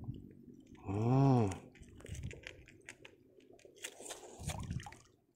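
A man's short wordless voiced sound about a second in, rising then falling in pitch, followed by scattered light clicks and rustles of hands working the rod, line and a freshly caught fish.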